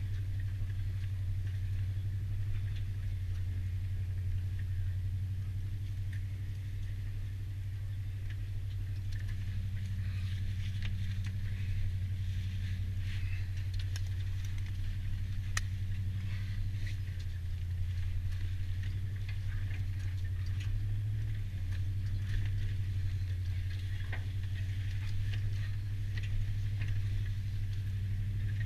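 Ford F-150 pickup's engine running steadily at low speed under light throttle, heard from inside the cab, with scattered light clicks and rattles over it.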